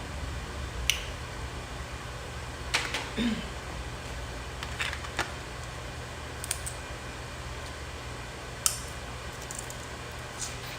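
Crab leg shells being cracked and pulled apart by hand: scattered sharp cracks and clicks, a few clustered together about three seconds in, over a steady low hum.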